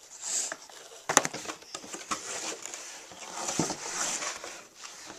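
Paper and cardboard rustling as packing papers and a Priority Mail shipping box are handled, with a sharp click about a second in.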